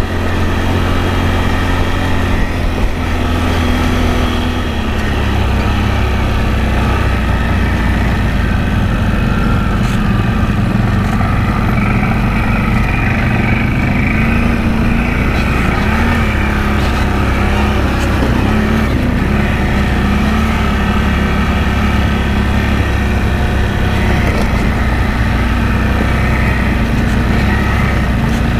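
ATV engine running steadily while riding along the trail. Its pitch drops and the level dips briefly about five seconds in, then holds steady.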